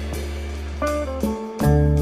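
Background music: plucked guitar notes over a steady bass, with a short break in the bass about one and a half seconds in before it comes back louder.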